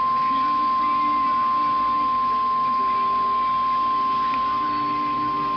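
NOAA Weather Radio's 1050 Hz warning alarm tone: one steady, unbroken high beep from a radio speaker. It is the alert that comes before the voice message of a tornado warning.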